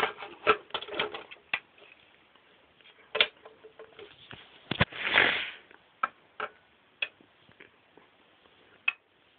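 Irregular clicks and knocks of hard plastic toy parts being handled: the modules of a build-your-own sonic screwdriver being pulled apart and fitted together. A short rustle comes about five seconds in.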